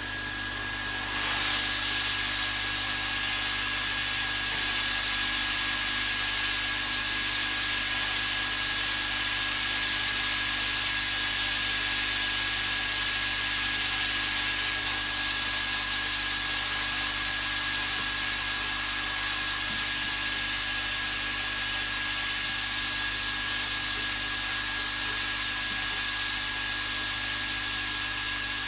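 Hot-air rework station blowing a steady hiss with a faint high whine, heating the charging port on a phone motherboard to melt its solder for removal. The airflow comes up about a second in.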